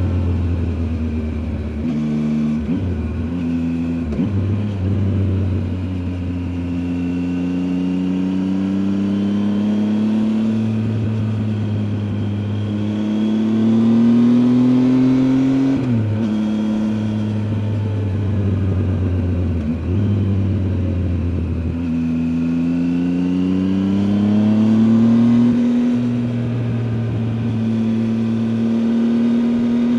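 Triumph Tiger 800 XCA's 800 cc three-cylinder engine heard from onboard, pulling through the gears: its pitch rises under acceleration and drops sharply at each gear change, several times over.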